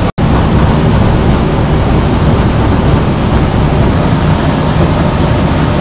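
Steady, loud low rumble of a fishing boat under way, engine noise mixed with wind and sea. It cuts out for an instant just after the start.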